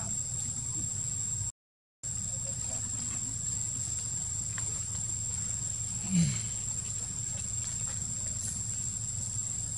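Steady high insect chorus over a low steady hum. About six seconds in comes a single short low grunt, falling in pitch, from a long-tailed macaque; it is the loudest sound. The sound cuts out completely for half a second about one and a half seconds in.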